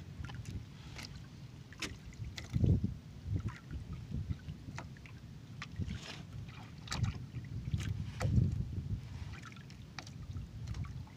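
Water and wind around a small wooden fishing boat, a low rumble that swells twice, with scattered light clicks and taps from hands handling the catch of red snappers on the deck.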